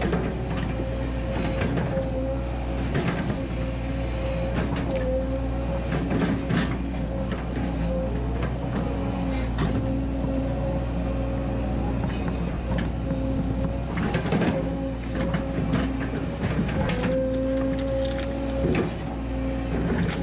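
Volvo 140 hydraulic excavator working: the diesel engine runs steadily under load with a high hydraulic whine that dips and comes back as the boom and bucket move. The bucket knocks and scrapes in soil and roots several times.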